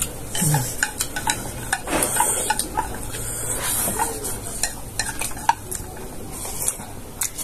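Eating sounds at close range: cutlery clinking and scraping against a plate, a scatter of short clicks with bursts of crisp hiss from chewing.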